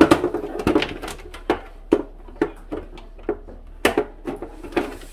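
Plastic cover of a water-purifier filter case being pressed and snapped down onto the case: a run of sharp plastic clicks and knocks, about one or two a second, with a burst of handling noise at the start.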